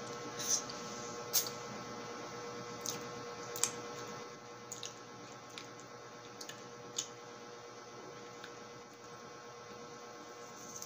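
Wet mouth sounds of sucking and eating a lemon wedge: a series of sharp smacks and slurps, most of them in the first half, over a faint steady hum.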